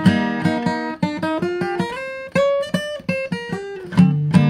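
Acoustic guitar music: a run of plucked notes and strums, with a fuller, louder chord near the end.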